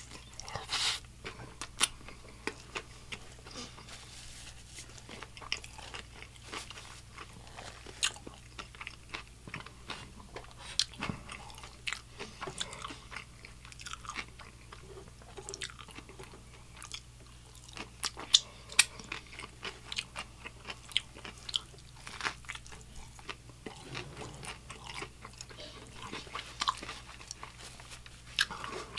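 Close-miked chewing and biting into a Nashville hot fried chicken slider on a soft bun: crunchy breading and wet mouth sounds, with many short, sharp, irregular clicks and crunches.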